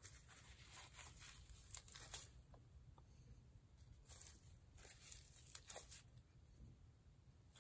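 Near silence over a low hum, broken by faint scattered rustles and light ticks: a disposable plastic glove crinkling as a small tool dabs paint onto the canvas.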